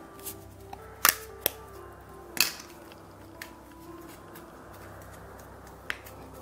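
Light background music with a few sharp plastic clicks, three in the first half and one near the end, from Play-Doh plastic pieces being handled.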